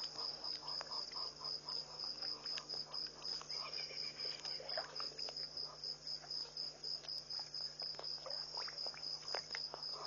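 Night chorus of crickets: a steady, evenly pulsing high trill, with a second, lower pulsing call coming and going and scattered faint clicks.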